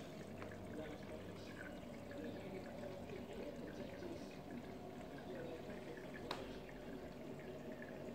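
Aquarium water trickling and bubbling steadily, with one sharp click about six seconds in.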